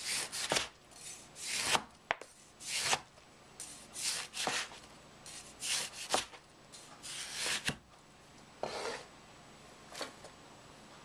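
Cleaver slicing through whole oranges on a cutting board: each cut is a short rasp through the peel and flesh, ending in a sharp knock of the blade on the board, about once a second. The cuts thin out near the end.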